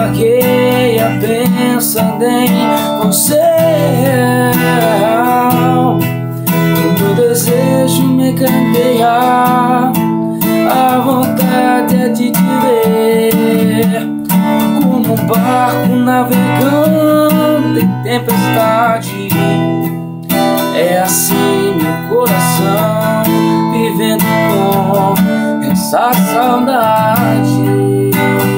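Acoustic guitar strummed steadily, with a wavering melody line over the chords.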